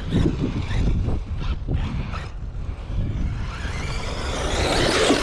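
Electric RC truck being driven: its motor whine builds over the last couple of seconds and glides up and down in pitch near the end. Under it runs a steady low rumble, and there are a few sharp knocks in the first two seconds.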